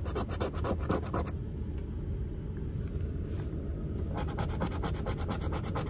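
A coin scratching the coating off a lottery scratch-off ticket in rapid strokes, in two spells: about the first second, then again from about four seconds in. A steady low rumble runs underneath.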